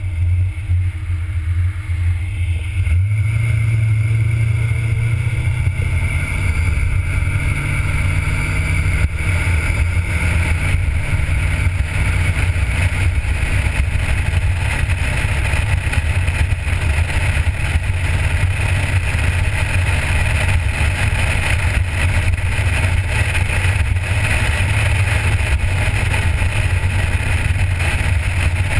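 A 1977 Corvette's small-block V8 pulls away from a stop about three seconds in, its pitch climbing until about ten seconds in, then drops back and runs at a steady cruise. Heard from outside on the windshield, with road and wind noise growing as the car picks up speed.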